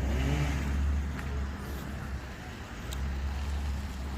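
Motor vehicle running with a steady low hum, with a brief voice-like sound in the first half-second.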